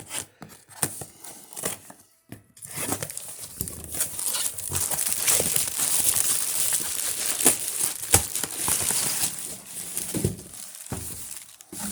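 A cardboard shipping carton being opened by hand: a few sharp clicks and scrapes, then several seconds of crinkling and rustling packing material, with a couple of knocks near the end.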